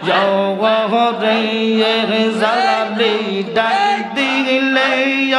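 Male voices chanting a Bengali Sufi devotional zikr (jikir), with a lead singer's winding melody over a steady held low note that steps up in pitch near the end.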